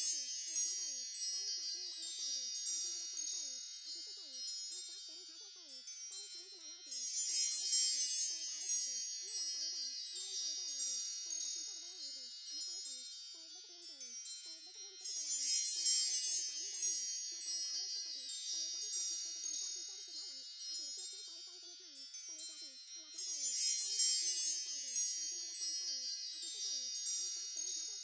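High, tinkling chimes in a looped track that swells afresh about every eight seconds.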